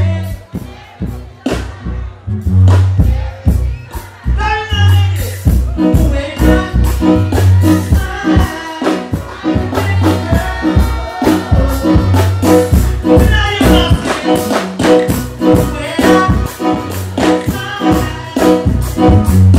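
Loud live music over a PA system: a heavy, repeating bass line and beat, with a man singing over it into a microphone.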